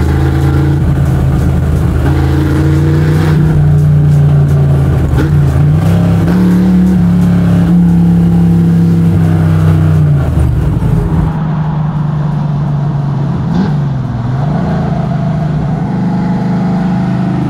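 Small-block Chevy V8 of a square-body Chevy C10 drift truck running as the truck drives. The engine note climbs about six seconds in, holds, then eases off around ten seconds, followed by a quieter, steadier engine note.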